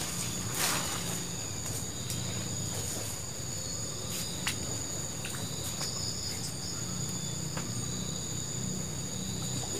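Steady, high-pitched chorus of insects shrilling without a break, with a brief rustle of brush being handled in the first second and a few faint clicks.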